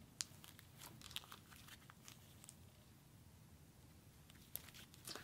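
Faint scattered crackles and sticky clicks of a purple cloud slime being pressed and stretched by hand.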